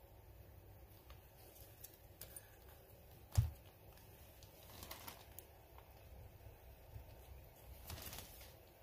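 Quiet handling of brake caliper parts: a few faint clicks and rustles, with one dull knock about three and a half seconds in.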